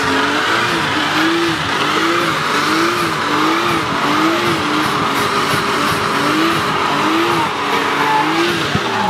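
Car doing a burnout: the engine's revs swell and dip over and over, a little more than once a second, over a steady screech of spinning rear tyres.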